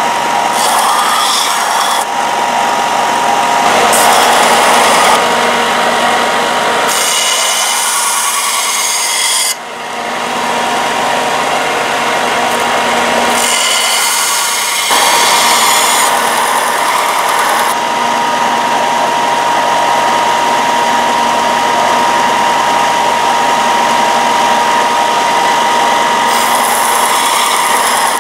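Belt grinder running with a steady whine while a high-carbon steel knife blade is pressed against the moving belt to grind its bevels. The grinding hiss changes sharply several times as the blade's contact with the belt changes.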